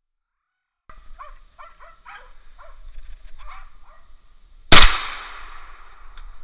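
Russian-European Laikas barking in short repeated calls at a moose held at bay, then a single loud hunting-gun shot about four and a half seconds in, with a trailing echo through the forest.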